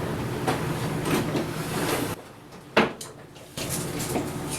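Light scrapes and knocks of tools and metal parts being handled around a lathe during a measurement, with one sharp click a bit under three seconds in, over a steady hum that drops out for about a second and a half.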